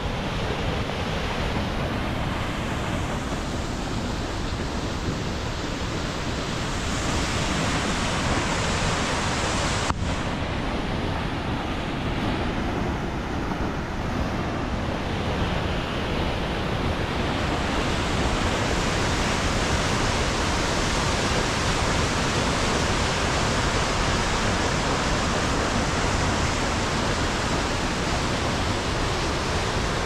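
Steady, even rush of a waterfall pouring down through a snowy rock gorge.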